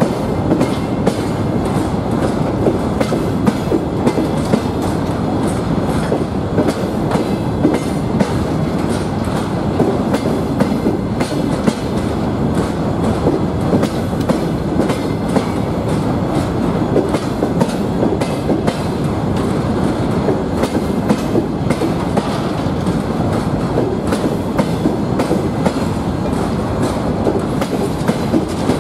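Freight wagons (covered hoppers and open cars) rolling past close by: a steady rumble of steel wheels on rail with a constant run of clicks and knocks as the wheelsets cross rail joints.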